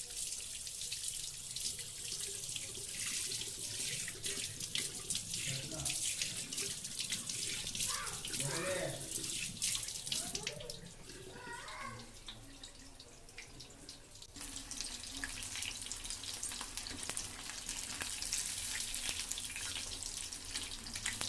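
Chicken kebab pieces deep-frying in hot oil: a steady crackling sizzle. A faint voice is heard in the middle, and a low hum joins about two-thirds of the way in.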